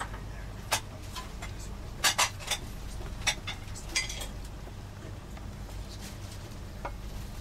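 Crockery and cutlery clinking on a train table: about half a dozen sharp clinks and knocks, several close together around two seconds in, over the coach's steady low hum.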